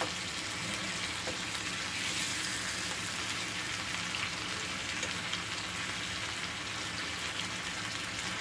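Chicken wings sizzling steadily in hot oil in a frying pan as they brown, turned now and then with a wooden spatula.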